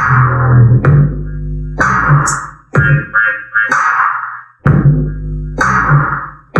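A beat played live on the pads of a Native Instruments Maschine MK2: sampled hits with deep bass land about once a second, layered with a guitar-like plucked sound run through effects.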